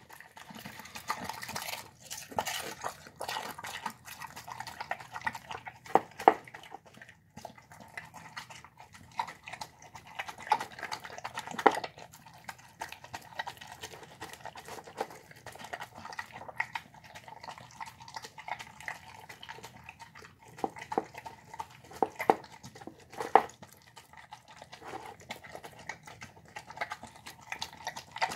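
A dog eating soft brown rice with vegetables and egg from a bowl: continuous wet, irregular chewing and lip-smacking, with a few louder sharp smacks and clicks now and then.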